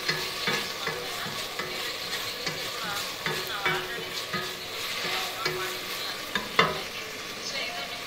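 Wooden spatula stirring and scraping in a steel pan of boiled onions and tomatoes, in repeated irregular strokes, with one sharper scrape or knock near the end.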